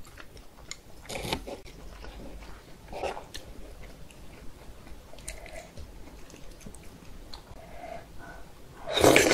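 Close-miked eating sounds: soft chewing of a meat-filled dumpling and faint clicks of wooden chopsticks working cold soybean noodles out of thick broth. Near the end comes one loud, breathy slurp of noodles.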